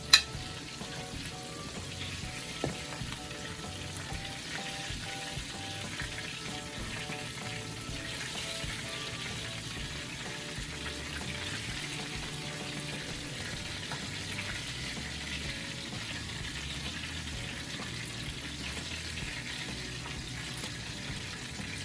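Chicken pieces sizzling steadily in hot frying oil, the burner already switched off. A sharp click right at the start and a smaller one a few seconds in.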